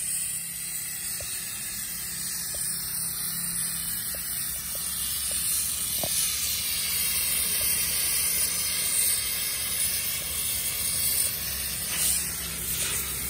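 A steady, even hiss, high in pitch, with a few faint ticks and a brief swell in loudness near the end.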